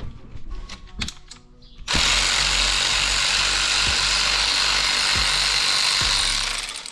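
A few light tool clicks, then a cordless power tool running steadily for about four and a half seconds, backing out a 15 mm alternator mounting bolt, before it winds down near the end.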